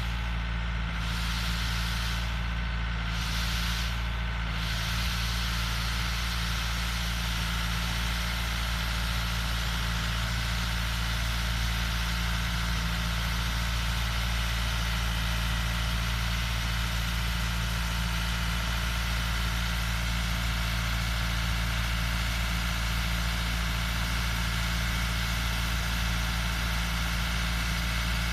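Tractor engine running steadily at a constant speed, with a steady hiss above the hum.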